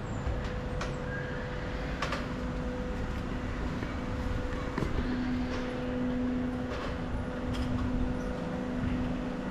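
Observation wheel's drive machinery humming steadily as the wheel turns, with a low, even tone that grows a little stronger about halfway through and a few light clicks.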